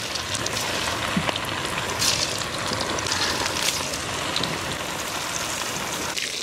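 Marinated, flour-coated fish pieces deep-frying in hot oil in a kadai: a steady sizzle with scattered crackles.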